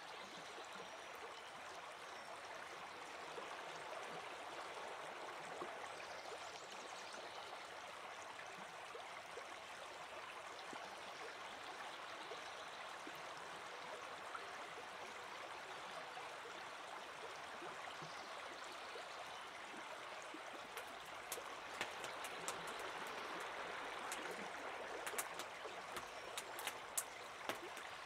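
River water flowing, a steady rushing sound. In the last third, scattered sharp clicks sound over it.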